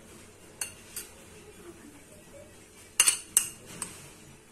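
Metal spoon clinking against a white ceramic bowl while scraping chopped coriander out of it: two faint clicks early, then three sharper clinks in quick succession about three seconds in.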